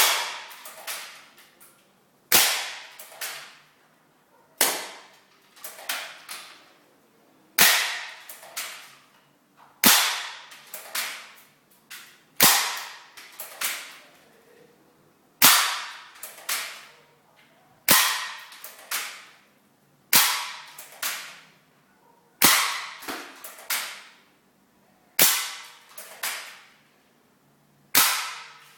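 Airsoft gun firing single shots, about a dozen, one every two to three seconds. Each shot is a sharp crack followed within a second by a few lighter clicks.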